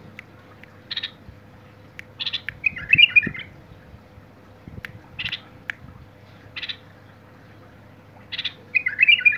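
White-eared bulbul calling from its cage: short call notes every second or two, with a louder bubbly warbled phrase about three seconds in and another near the end.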